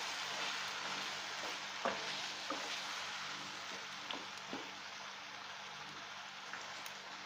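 Diced raw banana and masala sizzling in oil in a non-stick pan as a wooden spatula stirs them, with a few sharp clicks of the spatula against the pan.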